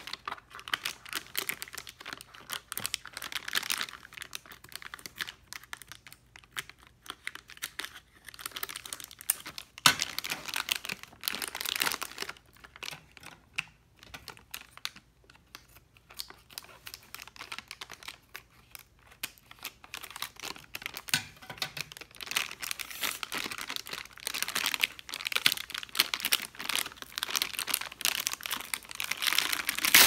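Crinkling and rustling of a foil anti-static bag handled by hand as a new hard drive is unwrapped, coming in spells with quieter pauses between. There is one sharp click about ten seconds in.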